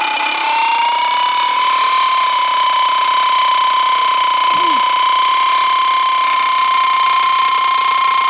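A loud, steady high-pitched mechanical whine over a hiss, its pitch creeping up slightly, then cutting off suddenly at the end.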